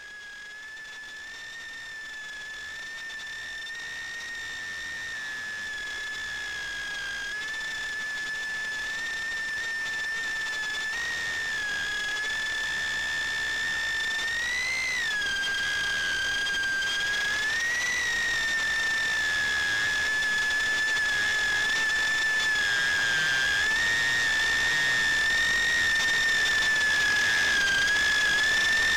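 Micro FPV quadcopter's motors whining at a high, fairly steady pitch, with a brief swell in pitch about halfway through and again a few seconds later as the throttle changes. The sound grows gradually louder throughout.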